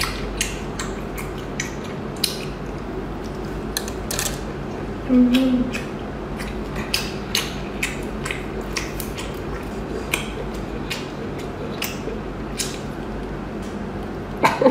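Scattered light clicks and clatter from a bunch of skewered braised abalone being handled, over a steady low hum. A short hum-like sound comes about five seconds in.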